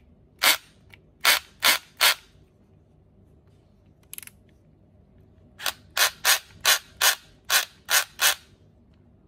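Bosch GSB18V-755C cordless drill's torque clutch collar turned by hand, clicking from one setting to the next. Four sharp clicks in the first two seconds, then after a pause a run of eight, about three a second.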